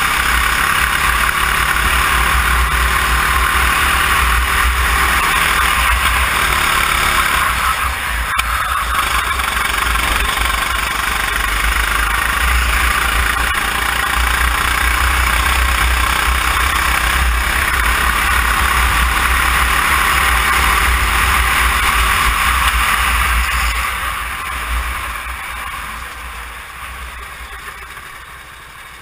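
Go-kart engine running at racing speed, its pitch rising and falling through the lap, under heavy wind rumble on the microphone. Over the last several seconds the engine note fades away as the kart slows down.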